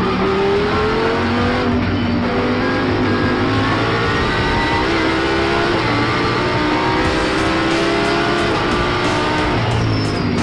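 Audi R8 LMS GT3's V10 engine heard from inside the cockpit, accelerating hard: the pitch climbs steadily and drops back at each upshift.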